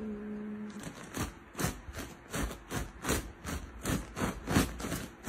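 A cat's meow trailing off in a held tone, ending about a second in. Then comes a run of short, noisy rasping sounds, about three a second.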